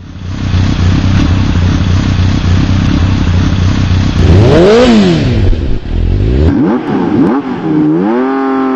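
Motorcycle engine running at idle, then revved up and back down about halfway through, blipped a few more times, and held at a higher rev as it fades out near the end.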